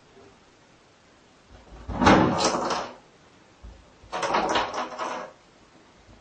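A cat scrabbling and knocking at a bowl in a bathtub: two short bursts of scraping and bumping, about two seconds apart.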